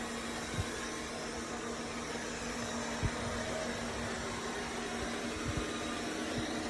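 Dreame L10s Ultra robot vacuum running with a steady motor and suction hum, with a few soft low thumps.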